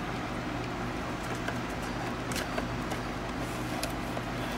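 A steady low electrical hum, with a few faint crisp clicks and rustles as one-dollar bills are pulled from a vending machine's bill-acceptor cash box and handled.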